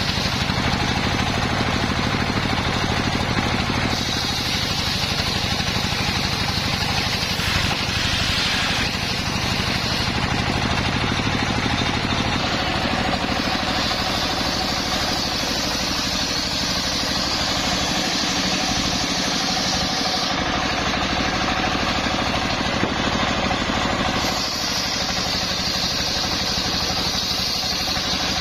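Engine-driven homemade circular saw rig running steadily while sawing coconut trunk. The saw noise changes every few seconds as the cut goes on.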